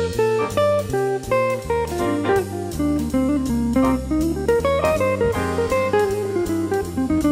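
Instrumental background music: a jazzy tune with plucked guitar over a steady drum beat.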